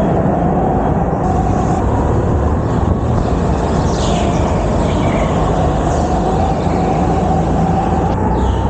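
Onboard sound of a go-kart being driven hard round an indoor track: the kart's motor makes a loud, steady drone, its pitch rising and falling a little through the corners, over a heavy low rumble.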